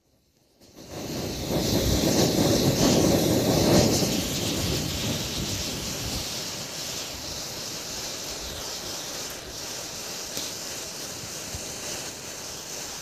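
Rushing hiss of rows of matchsticks flaring and burning in a chain reaction. It starts suddenly about a second in, is loudest for the next few seconds, then settles to a steadier, quieter hiss.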